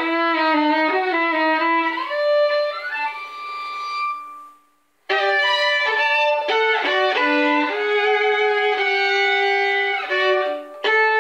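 Solo violin playing a tango. A long held note fades to a brief silence about four and a half seconds in, then the bowing comes back with quick, shifting phrases.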